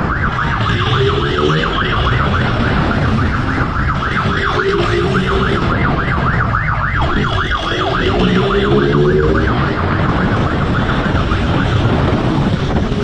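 Police motorcycle siren sounding a fast yelp, rising and falling several times a second without a break, over the pursuing motorcycle's engine, which revs up in pitch three times, and a steady low rumble of riding noise.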